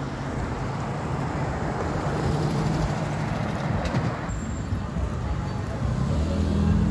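Cars driving past close by on a city street, the traffic noise growing louder toward the end.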